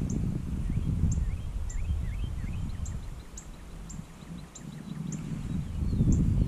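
Wind buffeting the microphone in a shifting low rumble that swells near the end, with birds chirping in short high notes repeated about twice a second.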